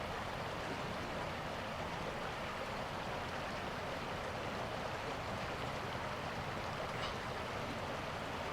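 Steady rushing background noise with no distinct events, and a faint tick about seven seconds in.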